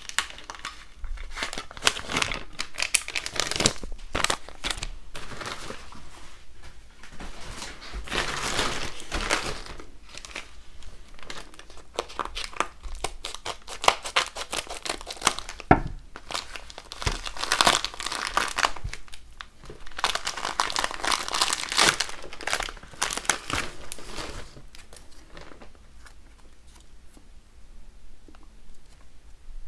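Crinkly plastic packaging rustling in irregular bursts as small bags are handled, cut with scissors and torn open.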